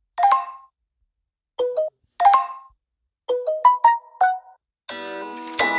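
Samsung Galaxy S8 notification tones previewed one after another through the phone's speaker: several short electronic chimes of a few notes each, the same chime heard twice, then a longer ringing tone that starts near the end.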